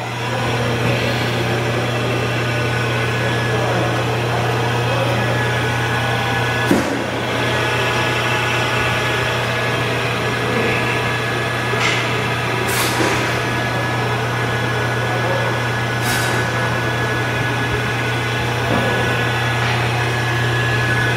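Duplex tool post grinder's 2.2 kW three-phase electric motor running steadily: a constant low hum with several steady whining tones above it. A few short knocks break in.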